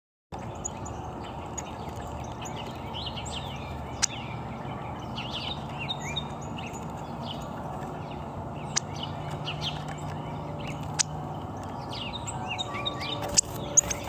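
Small birds chirping, with many short high chip notes in loose clusters over a steady outdoor hiss. A few sharp clicks are scattered through it; the loudest two come near the end.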